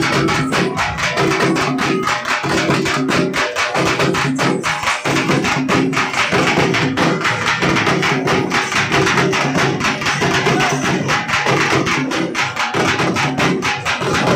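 Teenmaar drumming: large double-headed drums beaten with sticks in a fast, continuous, driving rhythm, loud throughout.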